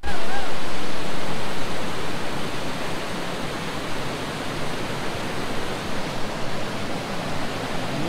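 A waterfall rushing in a steady, dense roar of falling water. The flow is heavy, swollen by rain. It is loudest for the first second or so, then settles slightly.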